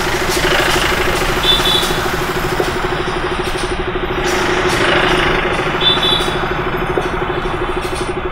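Motorcycle engine idling steadily with an even pulse. Two short high chirps sound about a second and a half in and again about six seconds in.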